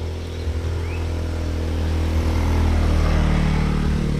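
A motor vehicle's engine running steadily, growing louder until about three seconds in and then easing off, as if passing by.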